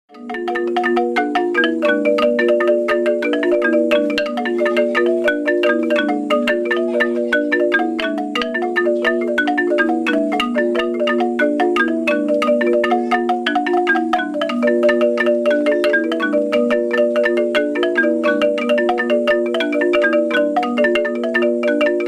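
A Chachi wooden marimba played by two people at once with mallets: a fast, steady stream of interlocking repeated notes, the lower bars sounding loudest.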